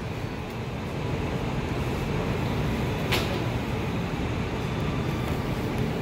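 Steady low background rumble with one short spray hiss about three seconds in, from a hand-held disinfectant spray bottle.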